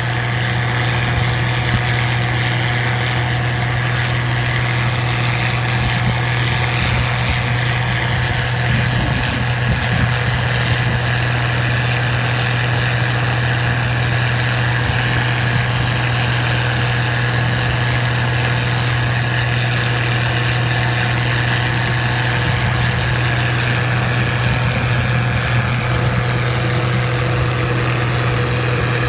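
Case IH 1688 Axial-Flow combine running steadily while harvesting wheat: a strong low drone with a steady higher whine over it. This is the noise the owner calls unusual; its cause is not given.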